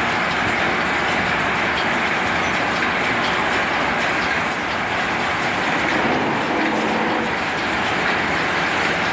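Steady, continuous noise of a metalworking machine running, with a faint hum rising from it about six seconds in.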